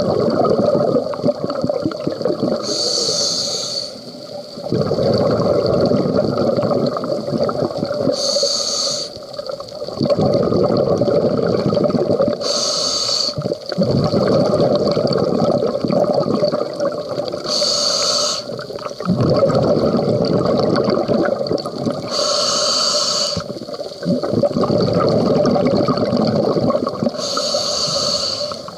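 Scuba regulator breathing underwater: a short hiss on each inhale, then a long rush of exhaled bubbles, in a steady cycle of about one breath every five seconds, six breaths in all.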